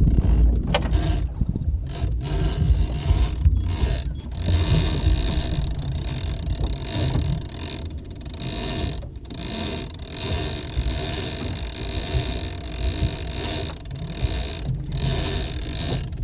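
Big-game fishing reel's drag buzzing as a hooked fish pulls line off against a loosened drag, stopping and starting again several times, over a low rumble of wind on the microphone.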